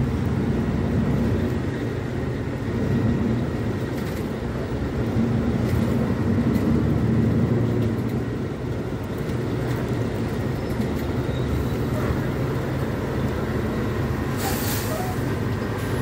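Mercedes-Benz O500U city bus engine running under way, heard from inside the cabin, its note swelling and easing twice as the bus pulls. A brief hiss comes about a second before the end.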